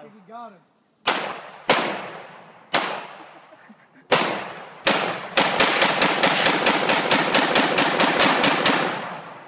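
Semi-automatic firearm shooting: five single shots spaced over the first five seconds, each with a long fading echo. Then a rapid string of about eighteen shots, roughly five a second, that stops about a second before the end.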